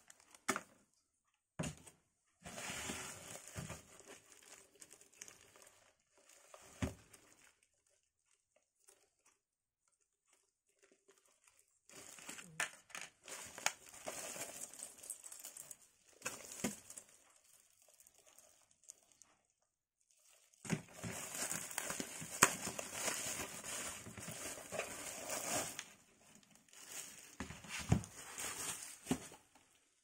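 Computer-part packaging being handled: plastic wrap and bags crinkling and rustling with sharp clicks and knocks. It comes in three spells with quiet pauses between them.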